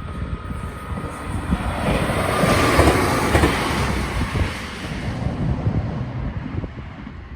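A train passing on the line, swelling to its loudest about three seconds in and then fading away.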